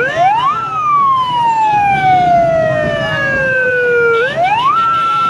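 Police car siren switching on: the pitch sweeps up quickly, falls slowly for about three and a half seconds, sweeps up again and then holds one steady high note.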